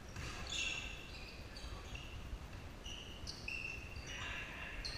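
Basketball shoes squeaking on a hardwood gym floor as players run: about ten short, high squeaks scattered over a few seconds.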